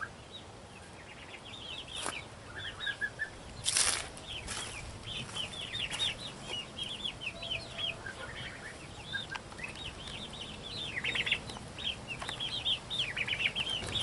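A pen of young quail and chickens chirping: rapid, short, high chirps throughout, with a few sharp knocks, the loudest about four seconds in.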